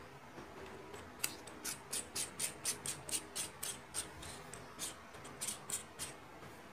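Battery compartment of a Boya BY-M1 lavalier microphone being closed by hand: a run of small, sharp, scratchy clicks, about four a second, as the cover is screwed shut after the battery goes in.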